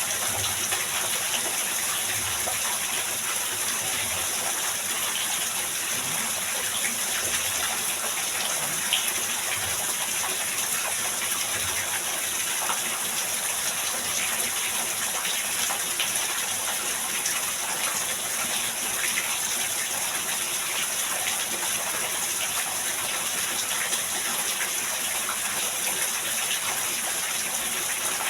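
Heavy rain pouring steadily, a dense rushing hiss with scattered faint drop ticks.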